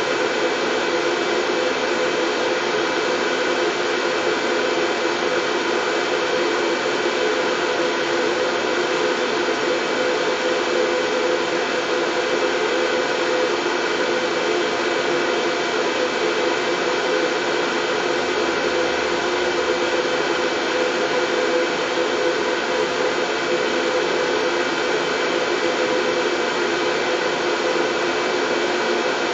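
Continuous white noise: an even, unchanging hiss with a few faint steady hum tones running through it.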